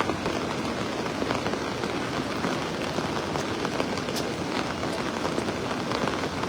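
Steady rushing of the swollen, flooding Nakkhu river, an even noise without breaks.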